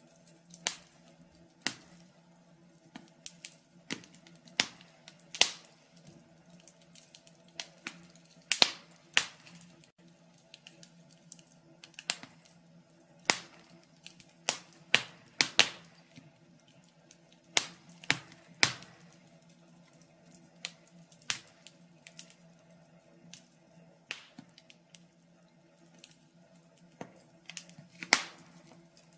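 Wood fire crackling: irregular sharp pops and snaps from burning logs, some louder than others, over a faint steady hum.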